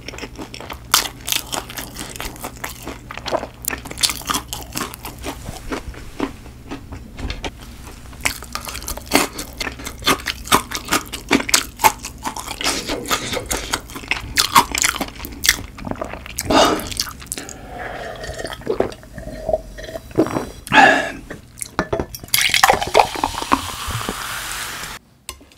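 Close-miked chewing with wet mouth clicks and crunchy bites. Near the end, cola is poured from a plastic bottle into a glass: a fizzing pour whose tone rises as the glass fills, then stops abruptly.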